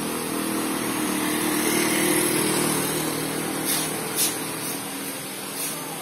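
Motor vehicle engine running with a steady hum that fades after about three seconds, over a constant hiss.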